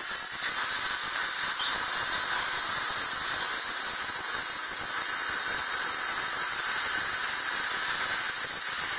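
Air plasma cutter torch cutting through rectangular steel tubing: a steady, loud hiss of the compressed-air plasma arc.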